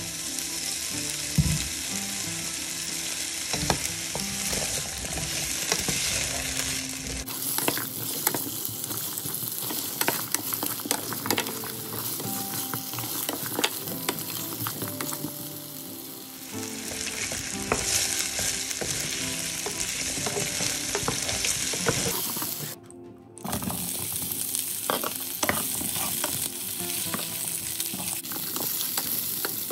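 Chunks of carrot and potato, and later bell pepper pieces, sizzling in hot oil in a nonstick frying pan, with frequent small clicks and scrapes as a utensil stirs them against the pan. The sizzle breaks off briefly about 23 seconds in.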